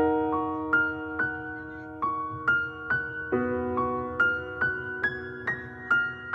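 Slow, sad piano music: a chord struck at the start, then single notes picked out about twice a second over a sustained accompaniment, the introduction to a pop ballad.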